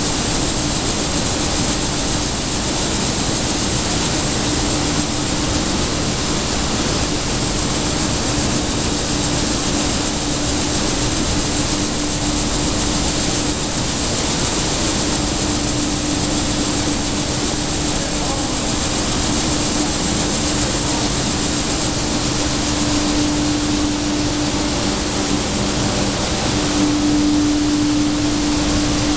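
Machinery of a sunflower seed dehulling line running: a loud, steady rushing noise with a constant hum that grows stronger near the end.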